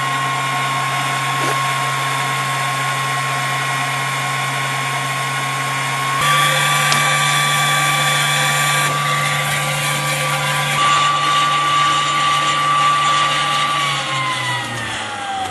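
Electric starting fan of a wood gas generator running with a steady whine, drawing air through the generator so the wood fire warms it up toward making gas. It gets a little louder about six seconds in, and near the end its pitch falls as it winds down.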